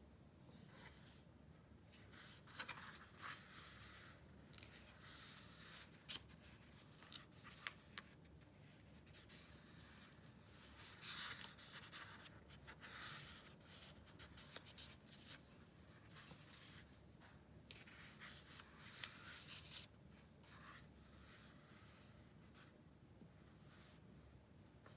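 Thin pages of a thick hardbound Quran being turned and smoothed by hand: faint paper rustling in several bouts, with a few small sharp clicks.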